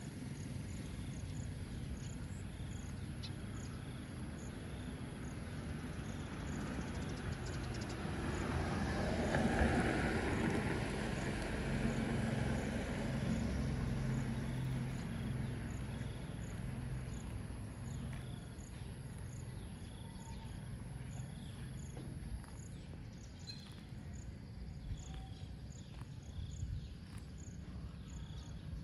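Outdoor ambience of insects chirping in a steady, evenly spaced rhythm over a low rumble, which swells to a peak about ten seconds in and then fades.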